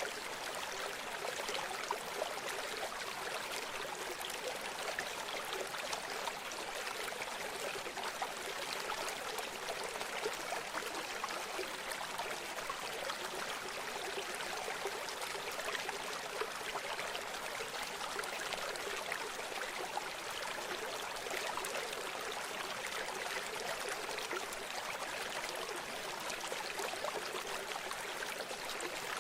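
River water flowing steadily over stones, a continuous rush with fine splashing and trickling.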